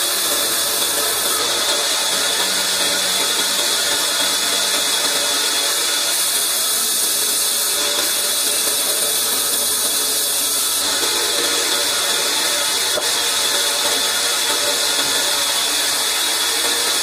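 Large vertical band saw running and cutting through logs: a steady, high-pitched noise that holds unbroken.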